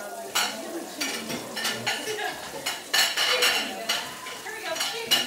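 Dishes and cutlery clinking and clattering at a kitchen sink, in a quick run of sharp, ringing knocks.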